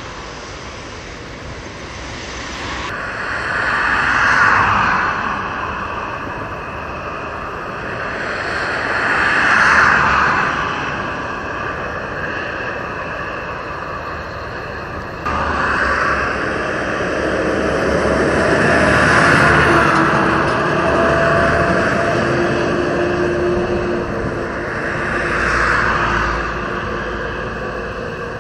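Steady outdoor machinery and traffic noise, with about five vehicles swelling past one after another, each rising and fading over two or three seconds, and a faint engine hum underneath in the second half.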